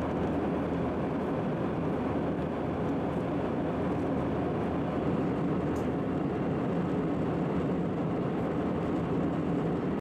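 Steady engine and air noise inside the cabin of an aircraft in flight, an even, unchanging rush heard from within the plane.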